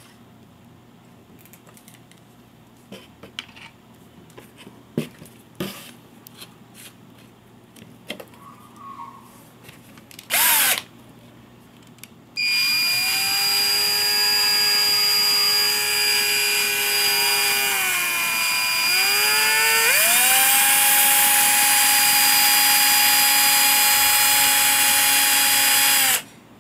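Cordless drill spinning a dual-action polisher head with a foam pad, running free without touching a surface. Scattered handling clicks come first, then a short blip of the motor about ten seconds in. From about twelve seconds the drill runs steadily as a whine for some fourteen seconds, slows and speeds back up about two-thirds of the way through, then cuts off suddenly.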